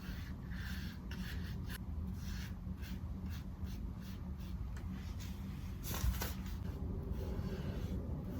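Repeated rubbing strokes, a few a second, over a steady low hum, with a single louder knock about six seconds in.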